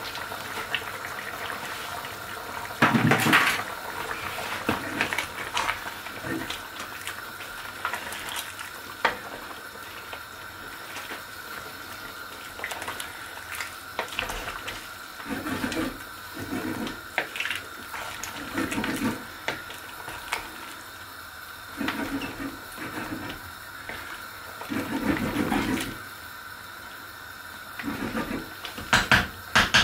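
A large pot of chicken stew simmering on a gas hob while a wooden spoon stirs it: liquid bubbling and sloshing, with scattered knocks of the spoon against the pot and a quick run of taps at the very end.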